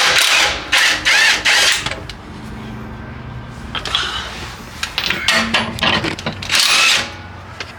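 Several short bursts of tool noise as a suspension bolt is loosened: loudest over the first two seconds, then again around four, five and nearly seven seconds in.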